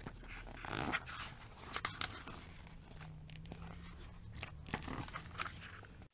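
Glossy catalogue pages being turned and handled: faint paper rustling and small clicks, a little louder about a second in.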